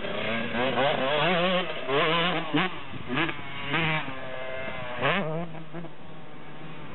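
Dirt bike engine revving up and down in quick throttle bursts, roughly every half second, as it is ridden round a motocross track and over jumps. After about five seconds it runs more steadily and a little quieter.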